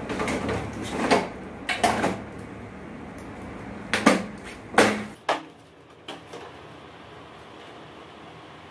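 Hard plastic knocks and clicks from a split air conditioner's indoor unit as its hinged front panel is handled and pressed shut. There are about six sharp knocks over the first five seconds, then only a faint steady hiss.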